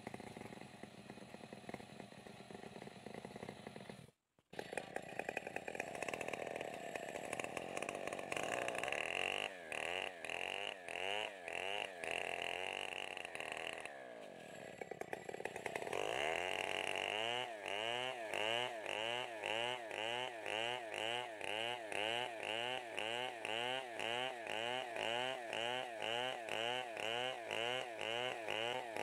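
STIHL 070 chainsaw, a large two-stroke, cutting lengthwise through a log to mill planks. Its engine pitch rises and falls in a steady rhythm about twice a second. It is quieter for the first few seconds and eases off briefly about halfway through.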